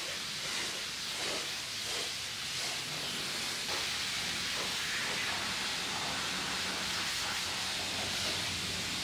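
High-pressure wand at a self-serve car wash spraying water onto a truck: a steady hiss of spray.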